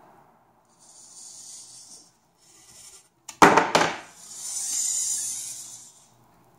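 Hobby servo motors of a desktop robot arm whirring in short spells as the arm moves. About three and a half seconds in, the arm jerks violently and its metal bracket parts clatter loudly.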